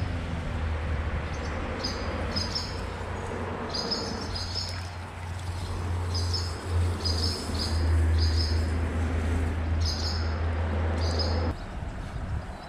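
Birds chirping in short, repeated high calls, over a low steady rumble that stops suddenly near the end.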